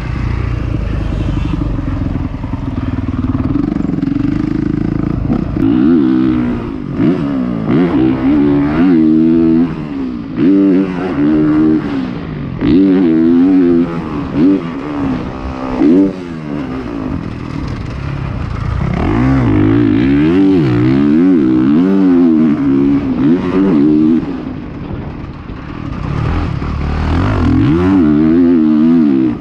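Motocross dirt bike engine heard from on board, revving up and down over and over as the throttle is opened and shut around the track. It eases off briefly a few seconds before the end, then pulls hard again.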